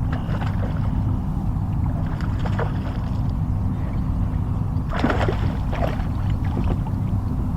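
Water lapping and splashing against a kayak, with a few short splashes and knocks, the strongest about five seconds in, over a steady low rumble.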